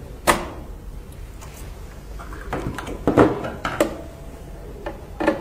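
A handful of sharp clicks and small knocks as wire connectors are worked off the vacuum pump motor's terminals and the circuit board is handled with pliers.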